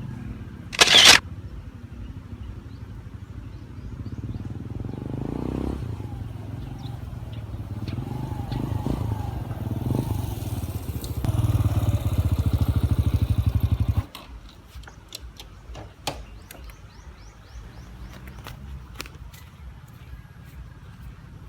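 Yamaha XTZ 125's single-cylinder four-stroke engine, fitted with an aftermarket muffler, running on a ride with revs rising and easing off. There is a brief loud rush of noise about a second in. The engine sound drops away suddenly about 14 seconds in, leaving a quieter stretch with scattered clicks.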